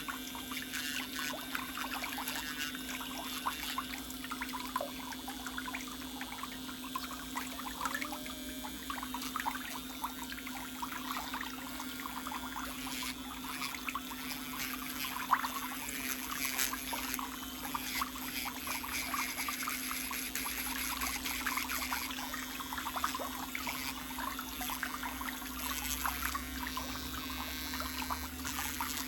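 Water trickling and pouring in small irregular splashes, over a steady low hum.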